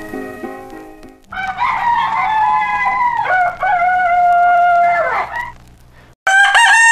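Rooster crowing: one long crow of about four seconds, then a second crow starting near the end. The fading end of guitar music is heard at the start.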